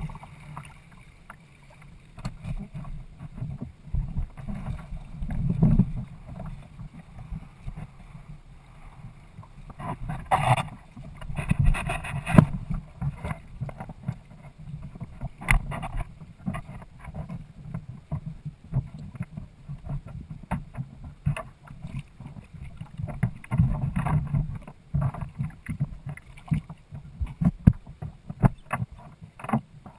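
Water rushing and slapping against the hull of a Hobie Adventure sailing kayak moving under sail through choppy water, with wind buffeting the microphone. Louder surges come about ten and twelve seconds in.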